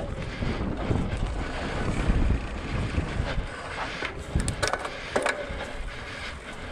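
Wind buffeting the microphone in a dense low rumble, with a few sharp clicks and rattles scattered through it, several of them together about four to five seconds in.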